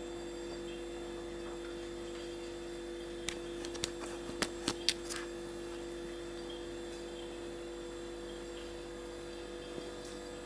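Camera handling noise: a quick run of about six light clicks and taps on the camera body, starting about three seconds in and over within two seconds, with one more faint click near the end. A steady hum runs underneath.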